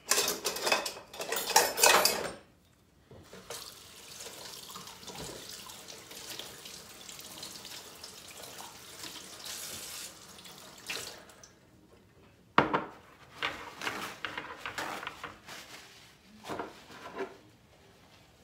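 Liquid splashing and running: loud splashy bursts over the first two seconds, a steady hiss of flowing liquid for several seconds after, then more splashing bursts after about twelve seconds.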